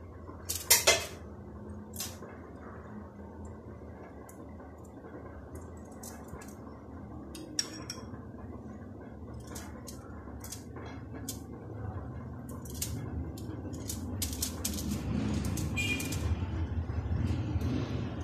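Metal table knife spreading mayonnaise over a slice of bread, a soft scraping with scattered clicks of the knife, the sharpest pair about a second in. A low rumble grows louder in the background over the last several seconds.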